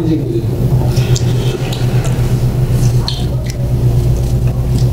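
Steady low rumble, with faint scattered clicks of chopsticks and the small noises of people eating.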